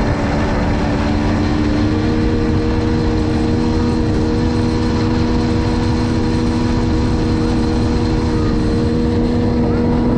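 60 hp outboard motor running a bass boat at speed, holding a steady pitch, over a loud rush of wind and water.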